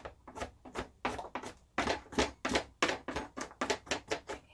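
Chef's knife chopping garlic on a plastic cutting board: a quick, uneven run of knocks, about three or four a second, as the cloves are minced.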